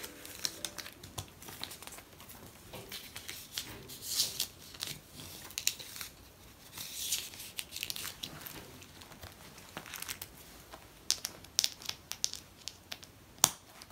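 Photocards and paper placeholders sliding in and out of clear plastic binder sleeves: crinkling and rustling of plastic and paper, with many light clicks and taps. There are two longer rustles, about four seconds in and about seven seconds in.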